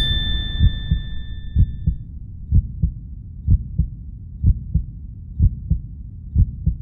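End-screen outro sound effect: a chime fading out over the first two seconds, over a low, heartbeat-like double thump that repeats about once a second.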